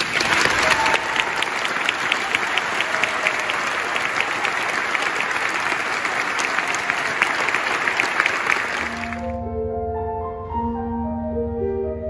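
Audience applauding for about nine seconds. The clapping stops and keyboard music with held notes begins.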